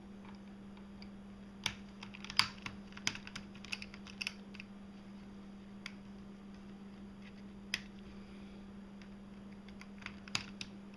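Scattered small clicks and taps of a fine screwdriver and tiny M2 screws against a netbook's plastic case as the screws are worked out. The clicks come in a cluster about two to four seconds in, once more near the eighth second and a few times near the end, over a steady low hum.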